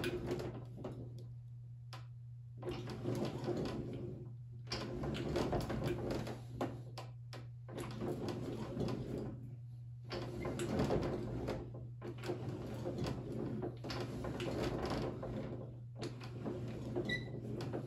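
Hand-cranked bench slip roll rolling a strip of sheet metal into a curve, its rollers and crank grinding in spells of a few seconds with short pauses between turns. A steady low hum runs underneath.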